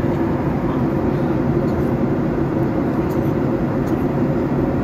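Steady cabin drone of a Boeing 737-800 airliner in cruise, heard inside the cabin: its CFM56-7B engines and the air rushing past the fuselage, even and unchanging.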